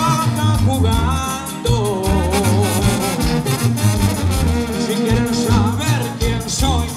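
Latin music with a pulsing bass line under a wavering sung melody.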